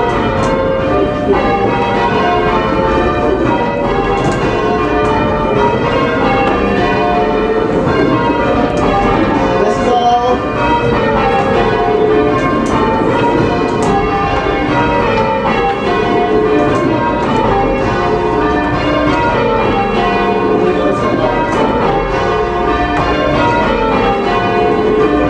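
Church tower bells rung in changes: a continuous run of loud, overlapping bell strikes, one after another without a pause.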